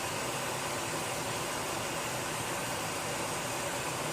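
Steady hiss of gas escaping from a kitchen gas release, even and unchanging.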